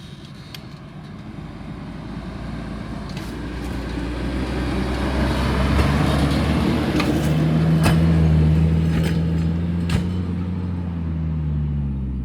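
A Fiat 126p's air-cooled two-cylinder engine working under load as the small car drives up a sandy hill. It grows steadily louder as the car comes closer, holds a steady pitch, and is loudest about eight seconds in before easing off slightly near the end.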